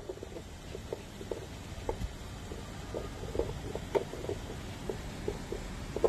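Small dog gnawing and chewing on a chew, with irregular soft clicks and crunches two or three times a second.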